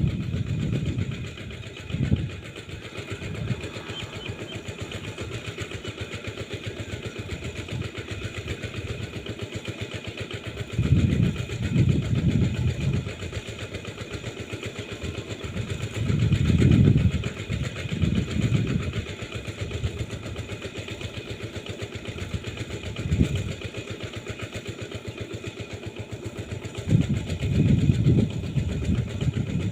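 A small engine running steadily, with several louder low rumbles that come and go every few seconds.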